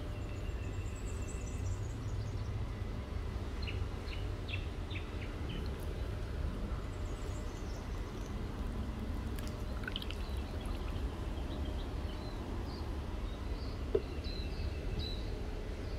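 Birds chirping in short, scattered calls and a few high trills over a steady low rumble, with one sharp click near the end.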